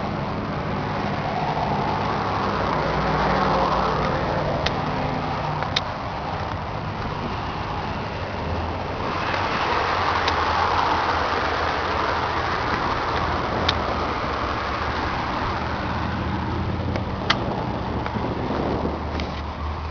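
A vehicle engine running steadily at low revs, with a louder swell of engine and road noise around the middle and a few sharp clicks.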